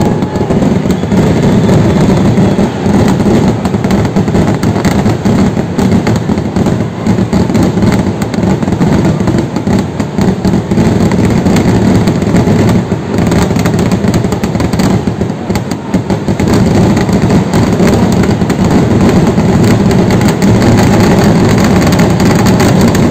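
Temple festival fireworks display: a dense, unbroken barrage of firework explosions merging into a loud, continuous rumble.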